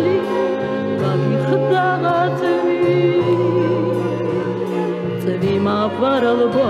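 Music: a woman singing with vibrato over a sustained orchestral accompaniment, with held chords and bass notes underneath.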